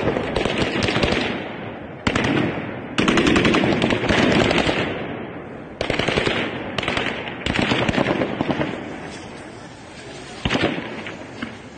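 Gunfire in repeated bursts of rapid, sharp shots, about six bursts, each starting suddenly and fading over a second or two.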